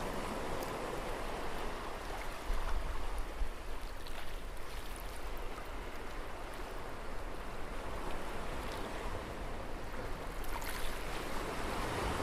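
Steady rushing, surging water noise, a sea ambience effect.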